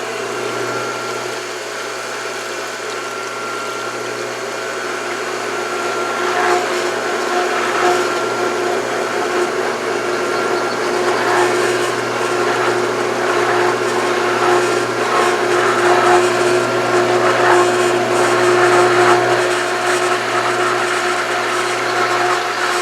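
Pool filter pump motor running with a steady whine while it draws air: an irregular crackling churn of air and water through the pump, which thickens and grows a little louder after about six seconds. The pump is not fully primed.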